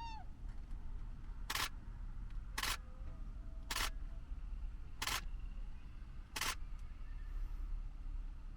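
Canon EOS-1D X Mark II DSLR shutter firing five times, each a short clack about a second or so apart. A brief bird call sounds right at the start.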